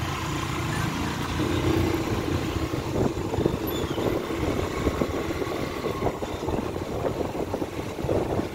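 Motorbike running along a road: steady engine hum under rumbling road and wind noise, with irregular knocks and bumps throughout.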